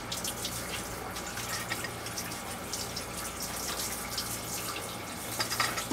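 Seawater running in around the propeller shaft through the open stern tube and splashing into the bilge as a steady trickle. The old shaft seal is off to fit a dripless seal. A steady low hum runs underneath.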